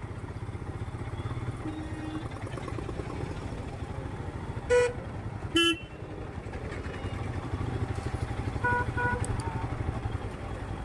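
Royal Enfield Scram 411's single-cylinder engine running steadily under way in city traffic. About halfway through come two loud, short horn honks, and near the end two fainter short beeps from a horn.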